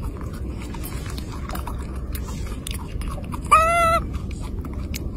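A baby macaque gives one short, high squeak about three and a half seconds in, over steady low background noise with faint scattered clicks.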